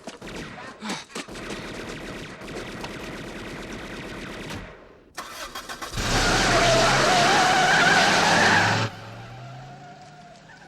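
A car speeding away: a loud tyre squeal lasting about three seconds, then the engine pulling off and fading.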